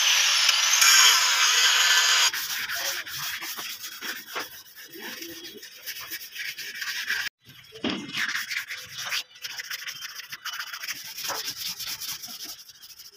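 Sandpaper rubbed by hand over a truck's steel body panel: scratchy back-and-forth sanding strokes, loud and dense for the first two seconds, then lighter and more broken.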